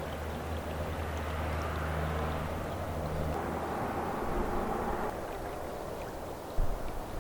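River water rushing and gurgling around a canoe under way, with a low steady rumble beneath it. A single thump comes about six and a half seconds in.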